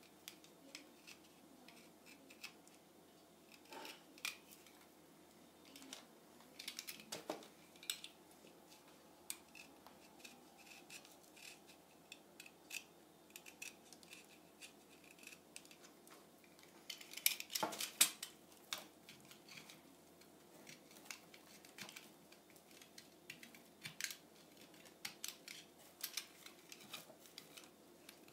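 A small wooden model-plane part being cut and scraped flatter by hand: irregular short scraping strokes and clicks, with a louder flurry of strokes a little past the middle.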